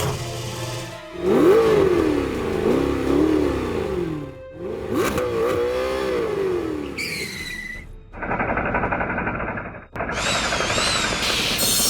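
Toy-vehicle engine sound effects revving, the pitch rising and falling over and over in two long runs, then a steady buzz and a high warbling tone near the end.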